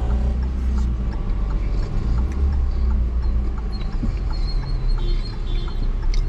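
A road vehicle running on the move: a steady low rumble with faint, evenly spaced ticks over it.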